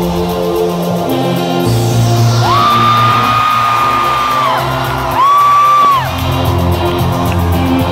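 A live synth-pop band playing in a concert hall. Over it, someone close by lets out a long, high held whoop about two and a half seconds in, then a shorter, louder one a few seconds later.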